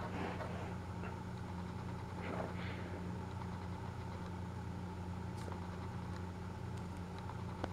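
A steady low mechanical hum, like an idling engine, runs throughout. Over it come a few faint rustles and clicks of plastic toy train track pieces being handled and fitted together, with one sharp click near the end.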